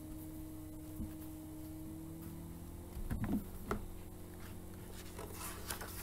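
A picture book being handled: a knock about a second in, a few knocks around three seconds in, and page rustling near the end. A steady low hum runs underneath.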